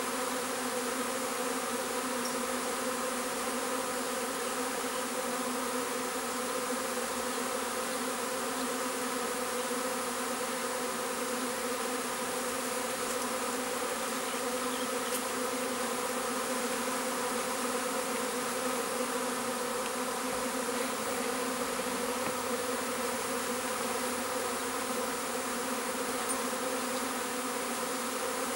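A honeybee swarm buzzing: the steady, even hum of many bees in flight as the swarm moves into a swarm trap box.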